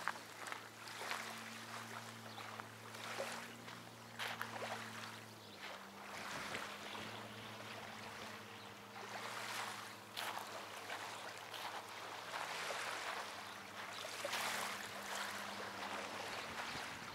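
Small waves lapping and splashing in irregular swells, with a faint steady low hum underneath.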